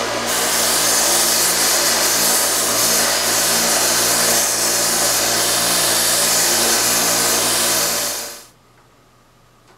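Small bench belt sander running steadily while the edge of a forged steel spoon bit is held to the belt, a continuous grinding hiss over the motor's hum as the cutting edge is dressed sharp. About eight seconds in it is switched off and quickly runs down.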